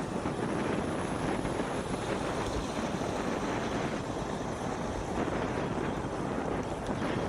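Steady wind rush on a moving cyclist's microphone with traffic or road noise under it, and no horn sounding.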